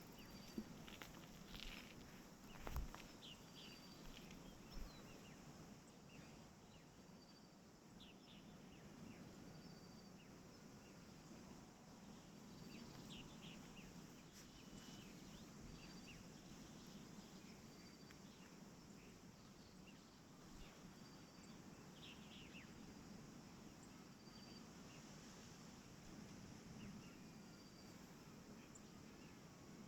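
Faint forest ambience: a high, short call repeats steadily about every second and a half, with scattered brief chirps. A few soft knocks come in the first five seconds.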